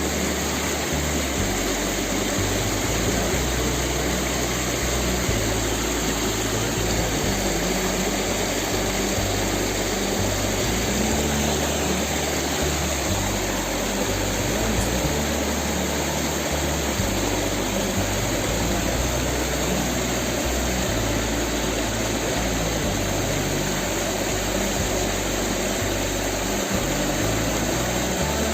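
Steady rush of flowing river water, with background music underneath.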